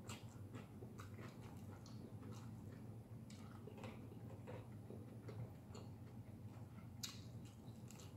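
Faint eating sounds: chewing and small clicks and taps of forks against plates, scattered irregularly, with one sharper click about seven seconds in.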